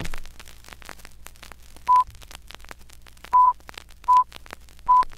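Old-film countdown leader sound effect: a constant crackle of film pops and clicks over a low hum, with four short beeps unevenly spaced, starting about two seconds in.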